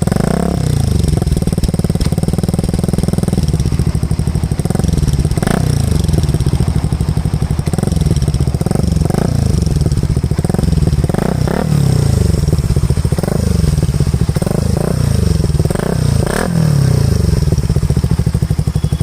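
Suzuki Raider 150 Fi's single-cylinder engine running through an Akrapovic muffler, ticking over between throttle blips. After a steadier stretch, it is revved in many short blips in quick succession, each pitch rising and falling back.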